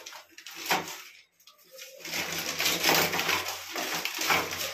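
Plastic cistern flush-valve parts rubbing and clicking as they are handled and pushed together, with a click about a second in and steady scraping from about halfway, over a low, steady cooing drone.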